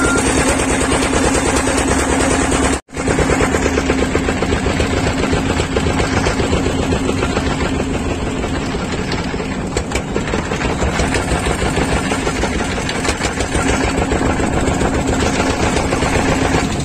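A small motorboat's engine running steadily close by, with fast even pulses and a steady low hum. The sound cuts out for a split second about three seconds in.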